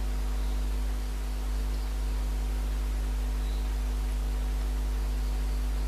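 Steady electrical mains hum, a low drone with a buzzy stack of overtones over a faint hiss, unchanging throughout.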